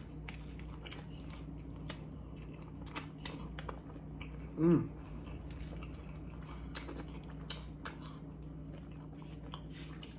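Close-miked chewing of a hamburger, with wet mouth clicks and smacks scattered throughout, and a short hummed vocal sound about four and a half seconds in.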